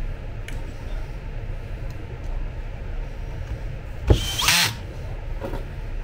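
Cordless drill-driver driving screws into an electric bed actuator's housing during reassembly, in short runs, with one loud brief burst about four seconds in.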